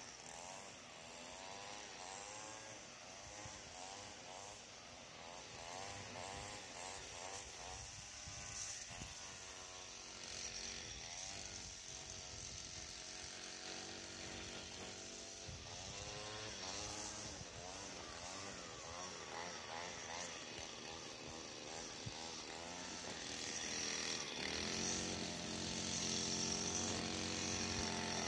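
Gas string trimmer (weed eater) at some distance, its engine revving up and down again and again as it cuts. About four seconds before the end it holds a steadier, higher speed and grows louder.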